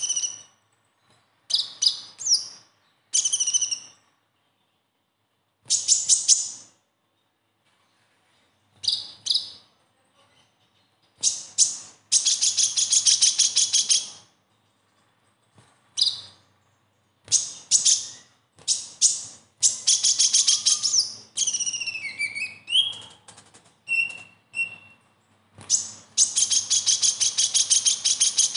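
Male kolibri ninja (Van Hasselt's sunbird) singing its besetan: high, sharp chirps in short bouts, broken by several long, fast trills of rapidly repeated notes, with a brief downward-sliding whistle about two-thirds of the way through.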